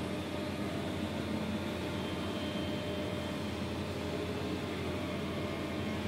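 Steady drone of a concrete pump and ready-mix trucks' diesel engines running during a slab pour, a low hum with a few held tones and no breaks, heard through window glass.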